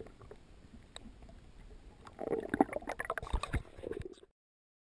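Underwater noise picked up through a diving camera's housing: a faint water hiss, then a couple of seconds of irregular knocks and sloshing as the speared tilapia and spear are handled close to the camera, cut off abruptly about four seconds in.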